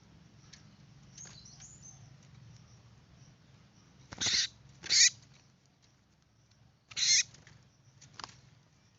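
A small bird giving three loud, harsh, short squawks about four, five and seven seconds in, with fainter chirps before and after. It is most likely the Java sparrow just caught in the trap.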